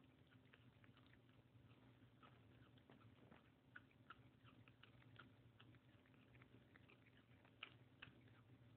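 Small dog chewing with its mouth down at the bedding: faint, irregular little clicks and smacks, a few sharper ones about four seconds in and again near the end.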